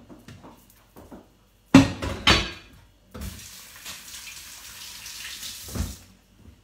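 A couple of clattering knocks about two seconds in, then a kitchen tap running into the sink for about three seconds before it is turned off.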